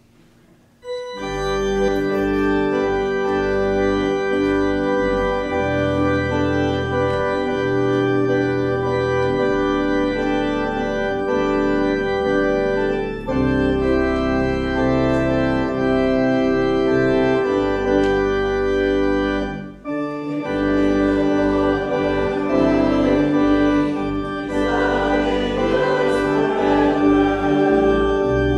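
Organ playing a hymn in sustained chords. It starts about a second in and breaks off briefly twice between phrases.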